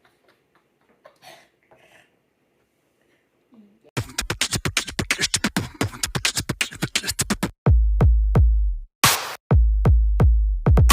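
Faint scattered clicks and taps, then about four seconds in electronic beat music starts suddenly: rapid drum-machine hits, with deep bass notes joining a few seconds later.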